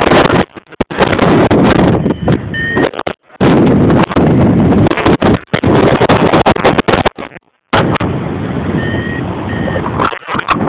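Wind buffeting the camera microphone in paraglider flight: a loud, gusty rushing that cuts out abruptly several times. A few faint short beeps sound about two and a half seconds in and again near the end.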